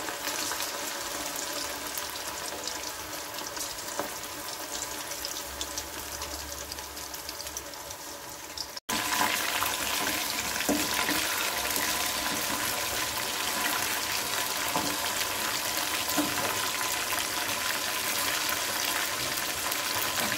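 Pieces of marinated chicken deep-frying in hot oil in an aluminium kadai: a steady sizzle of bubbling oil. The sound breaks off briefly about nine seconds in and comes back louder.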